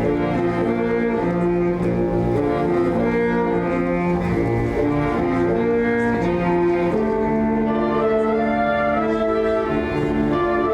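A school orchestra playing a slow piece, low strings such as cellos and basses holding sustained notes that change every second or two.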